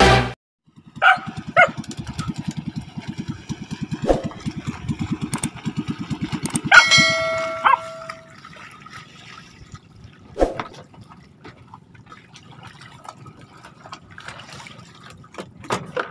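Small boat engine running with a fast, even beat that fades out about eight seconds in. About seven seconds in, a bright bell-like ding sound effect rings, the loudest sound here.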